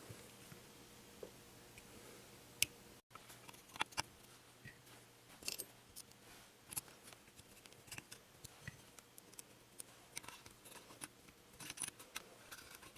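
Faint, scattered light clicks and taps of small metal parts and tools being handled, as a pistol's grip-panel screws are fitted and snugged. The sound cuts out completely for a moment about three seconds in.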